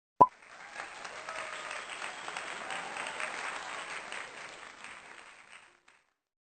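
A sharp click, then applause that builds and fades out over about five seconds.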